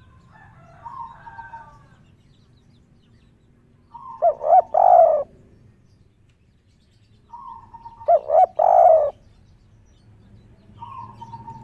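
Spotted dove cooing its three-note 'kuk 3' call three times, about every three and a half seconds: a soft lead-in, two short notes, then a longer drawn-out note; the third call begins near the end. Faint chirping in the first two seconds.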